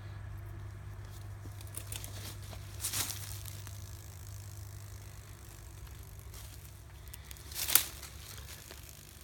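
Two short rustling scrapes: one about three seconds in and a sharper, louder one near the end. They sound like handling noise as the recording phone is moved about, and they sit over a steady low hum.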